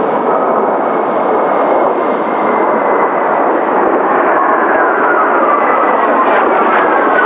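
Kawasaki T-4 jet trainers flying past, a steady loud jet roar with a thin engine whine that falls slowly in pitch as they go by.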